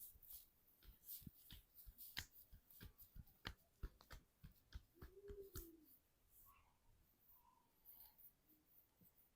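Faint, irregular soft taps and clicks of hands working during a head and back massage, coming about two or three a second for the first six seconds, then thinning out.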